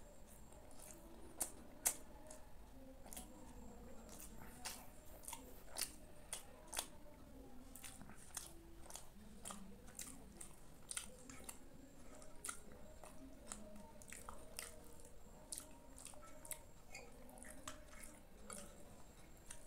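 A person chewing soft kheer and malpua close to the microphone, with many sharp, irregular mouth clicks and smacks throughout.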